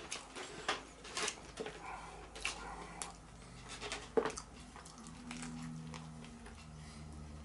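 Close-up chewing and mouth sounds of someone eating a burger and fries: irregular crunches, smacks and clicks. A low steady hum comes in about five seconds in.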